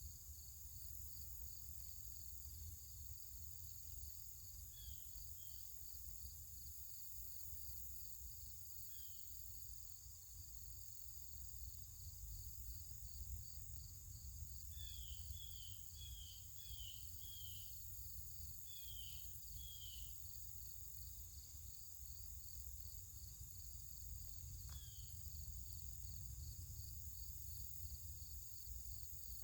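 Outdoor ambience of insects trilling in a steady, even pulse, with a few short, falling bird chirps, several in quick succession around the middle. A low rumble runs underneath, and there is one sharp click a little after two-thirds of the way through.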